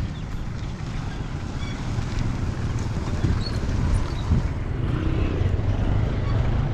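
Steady low rumble of road traffic mixed with wind on the microphone.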